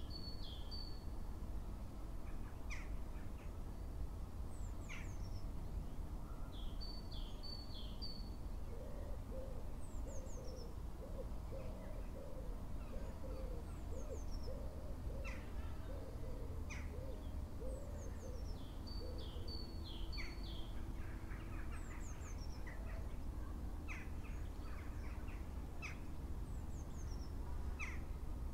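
Birds calling: a run of about ten low hoots, roughly one a second, through the middle, with short high chirps from small birds throughout, over a steady low rumble.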